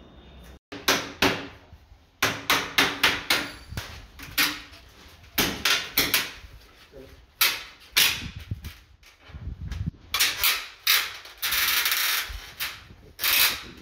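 Hammer blows and knocks on a white window frame as it is prised out of the wall during demolition, irregular sharp strikes, often several in quick succession. Near the end a harsh scraping noise lasts about a second.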